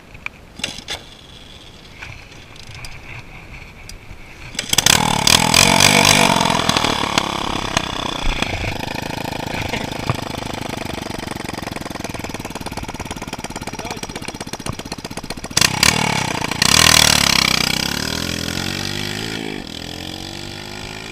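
Dirt bike engine, after trouble starting, catches about five seconds in and runs loudly, revving. It surges again later, then its note drops and fades as the bike rides away.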